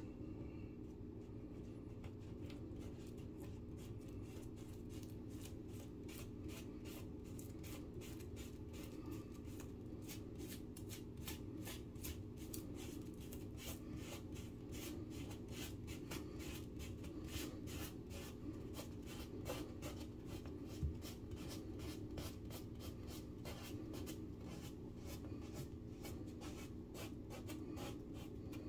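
A fingertip rubbing back and forth over a small filled hole in a drywall wall. It makes a dry, scratchy run of quick little ticks that grows busier after the first several seconds, over a steady low background hum.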